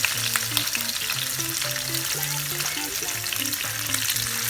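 Tofu slices frying in hot cooking oil, a steady dense sizzle and crackle of spitting oil. Quiet background music with stepping bass notes runs underneath.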